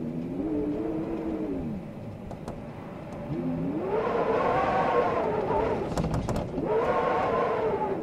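Blizzard wind howling in gusts, a whistling tone that rises and falls in pitch over a rushing hiss. It swells louder about halfway through, drops briefly, then rises again near the end, with a few faint clicks between.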